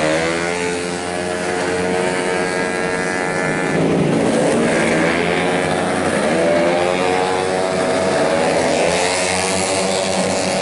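Tuned 131cc racing automatic scooters running at full throttle past the trackside. Their engine note rises in pitch as bikes pass, in three waves: near the start, about four seconds in, and again about seven seconds in.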